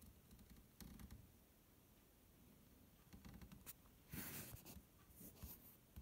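Near silence broken by a few faint rustles and scrapes from a handheld camera being moved about; the longest comes past the middle.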